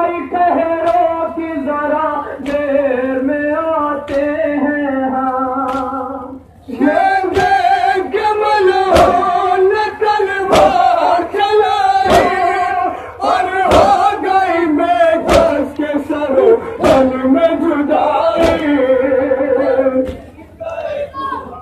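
Men chanting a Shia nauha (lament for Muslim ibn Aqil) in unison, with matam chest-beating: sharp slaps on the chest at a steady beat, the strongest about every second and a half. The chant breaks off briefly about six seconds in and resumes louder.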